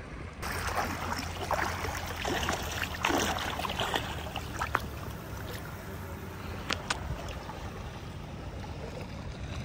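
A small fish caught on a handline splashing and thrashing at the surface of shallow sea water as it is hauled in, the splashing loudest in the first few seconds. A few sharp clicks follow, over a steady low wind and water rumble.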